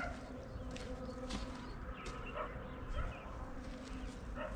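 Short animal calls, scattered high blips a few times a second, over a steady low background rumble.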